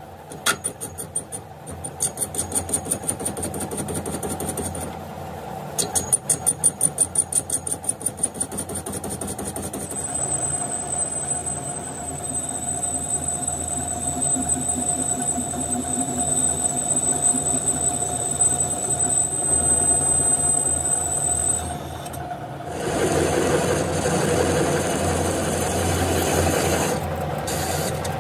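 Metal lathe cutting steel, the tool bit peeling off curled chips. A fast rhythmic ticking for the first several seconds gives way to a steady high-pitched squeal of the cut from about ten seconds in. Near the end the squeal stops and a louder, rougher cutting noise takes over.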